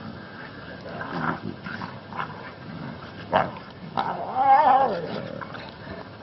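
A dog play-wrestling with white lion and tiger cubs: short yips and scuffles, and a wavering whining cry a little after four seconds in.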